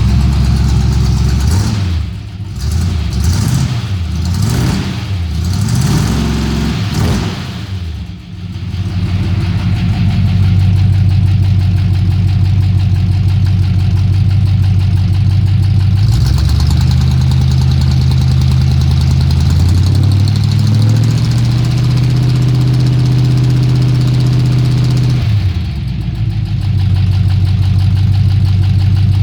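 1970 car engine exhausting through dual glasspack mufflers. It is revved in several quick blips, settles to an idle, then is held at a raised speed for about eight seconds before dropping back to idle. The owner says the engine has a lifter tick.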